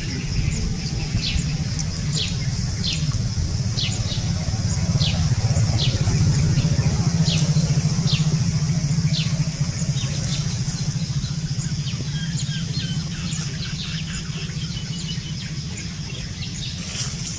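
A steady low rumble that swells towards the middle, with a bird's short, falling chirps repeated about once a second through the first half and fading after.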